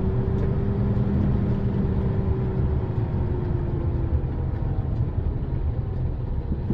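Heavy truck's diesel engine and road rumble heard inside the cab, steady, as the truck runs slowly down a steep grade. A humming tone fades out about four seconds in.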